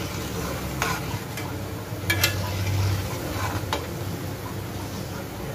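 Golapjam (gulab jamun) dough balls deep-frying in hot oil in a metal wok, a steady sizzle. A metal spatula clinks sharply against the pan a few times as the balls are turned.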